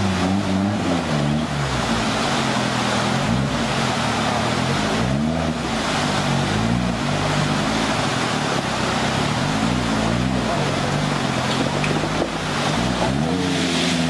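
Engine of an off-road 4x4 competition vehicle revving up and down repeatedly under load as it crawls over boulders in a stream. Fast-flowing water rushes steadily underneath.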